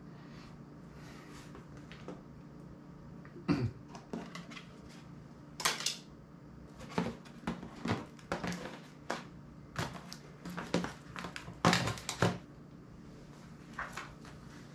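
Smartphones being picked up, stacked and set down on a hard tabletop: an irregular run of clicks and clacks of phone bodies knocking on the table and against each other, busiest in the middle and tailing off near the end.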